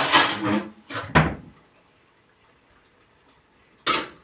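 A few short household knocks and bumps in a small room: two close together about a second in, and one more sharp one near the end.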